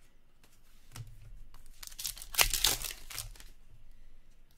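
A stack of hockey trading cards rustling and scraping against each other as they are slid through by hand, with a burst of rustling about halfway through that lasts a second and a half.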